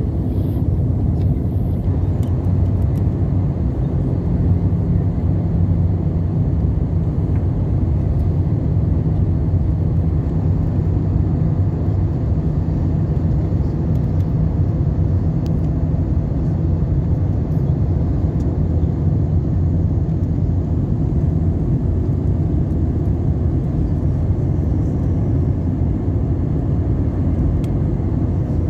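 Steady low cabin roar of an Airbus A320 in flight, heard from a seat over the wing: the jet engines and the airflow past the fuselage, even and unchanging.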